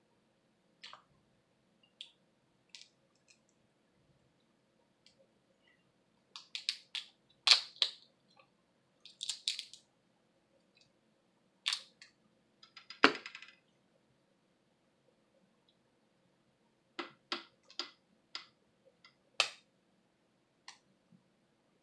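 Snow crab leg shells cracking and snapping as they are broken apart by hand, in scattered sharp cracks; the loudest snaps come about 7 s and 13 s in, the second with a brief crackle of splitting shell.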